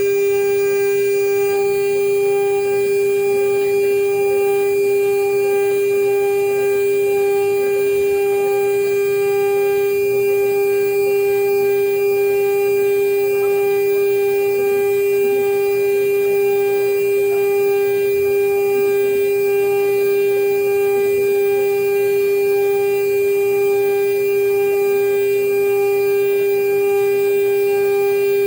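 CNC router spindle running at high speed with a steady whine, milling a marine-aluminum seal plate.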